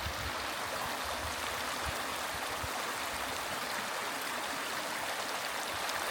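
Mountain stream rushing: a steady, even flow of water.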